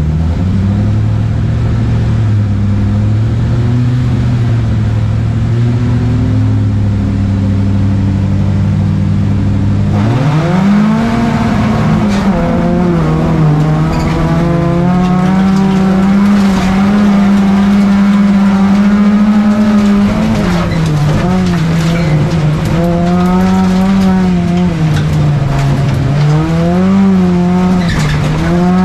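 Volvo 245 engine in a folkrace car, heard from inside the cabin. It is held at steady revs for about ten seconds, then climbs sharply as the car sets off and rises and falls repeatedly under throttle through the corners.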